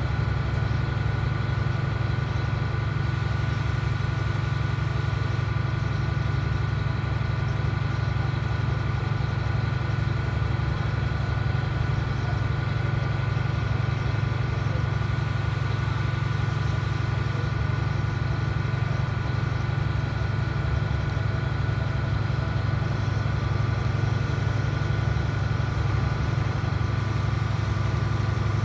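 Diesel engine of a DAF SB4000 Jonckheere bus running steadily, heard from inside the passenger cabin as an even low drone with a thin steady whine above it.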